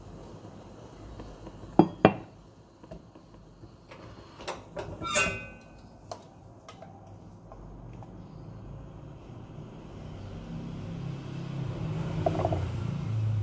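Kitchenware being handled: two sharp knocks, then clicks and a ringing clink of a spoon against a bowl, with a light scrape of the spoon near the end. A low rumble grows steadily louder through the second half.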